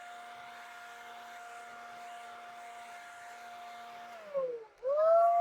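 Electric blower running with a steady whine while blowing sawdust off the work. About four seconds in the motor winds down, then spins back up and runs much louder.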